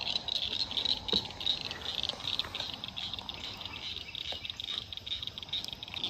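A steady chorus of high-pitched chirps pulsing several times a second from the pond's wildlife, with a few faint clicks of handling, the clearest about a second in.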